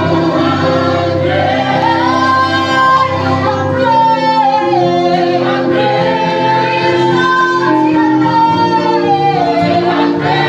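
Gospel praise-and-worship singing: a lead voice sliding up and down over a choir and keyboard holding long chords.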